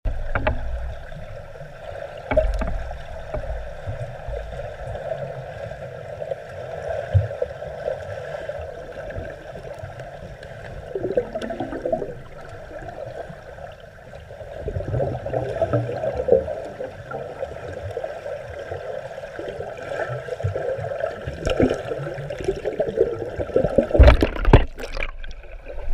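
Muffled underwater sound in a swimming pool: a steady water gurgle and slosh heard from below the surface. Near the end come several louder knocks and splashes.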